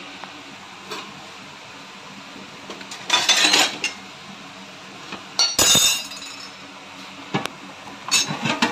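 Metal clinks and knocks on an aluminium cooking pot as green cardamom pods go into hot ghee. A short rattle comes about three seconds in, the loudest sharp knock a little past halfway, and a few quick clicks near the end.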